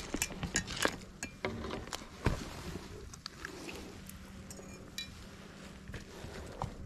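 Scattered light clicks and clinks of fishing gear being handled on a rocky bank, most of them in the first two seconds, with one sharper knock a little after two seconds in, over a faint steady hum.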